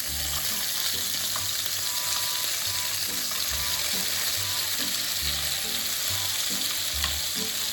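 Stuffed eggplant (nasu no hasami-yaki) frying in a pan until crisp, a steady sizzle.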